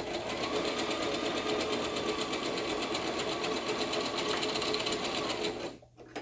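Electric sewing machine stitching at a steady fast rate, stopping abruptly near the end.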